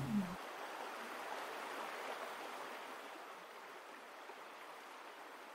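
Steady, even rushing noise with no distinct events, easing off slightly over the last couple of seconds.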